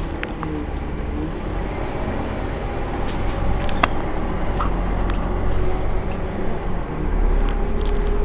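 Iveco Urbanway 12 city bus running: a steady, heavy low rumble with a faint whine that shifts in pitch near the start, a few light clicks, and a slight rise in loudness about seven seconds in.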